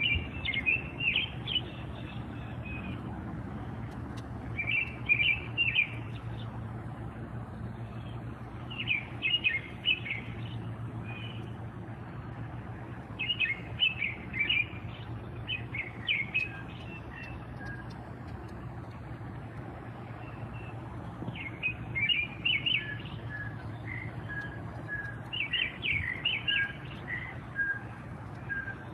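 Songbirds singing: a quick phrase of high chirping notes repeated every four seconds or so, and in the second half a quieter series of short, evenly spaced lower notes. A low steady hum runs underneath.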